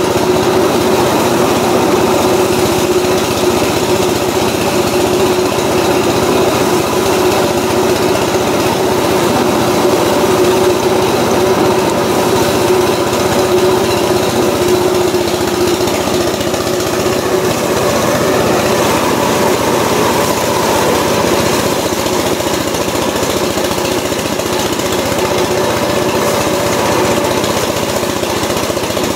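Rice threshing machine running steadily as sheaves of rice are fed into its spinning drum: a constant mechanical hum at an unchanging pitch.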